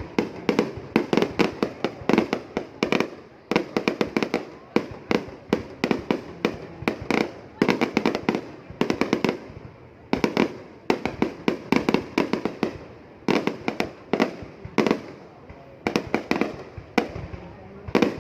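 Fireworks display: aerial shells bursting in rapid volleys of many sharp bangs, with short lulls between volleys.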